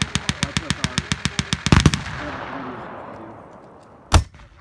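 Machine gun firing a long burst of blanks at about eight shots a second for roughly two seconds, its echo dying away across the field. A single loud shot follows about four seconds in.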